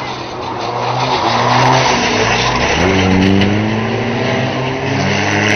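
Junior banger race car engines revving hard as the cars come through a bend, the engine note climbing about halfway through.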